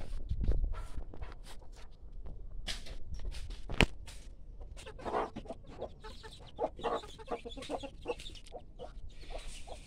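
Domestic chickens clucking in short calls, mostly in the second half, over crackling of dry maize stalks and leaves, with one sharp snap near the middle.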